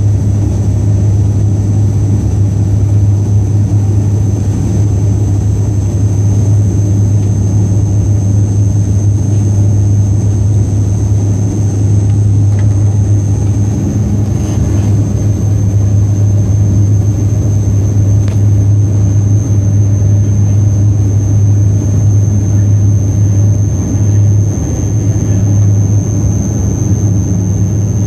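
Cabin noise of an ATR 72 turboprop on approach and landing: the turboprop engine and propeller outside the window give a loud, steady low drone. A thin, steady high whine sits above it.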